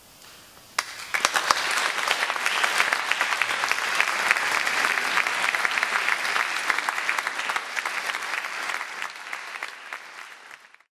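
Audience applauding after a short hush, the clapping starting about a second in and fading out near the end.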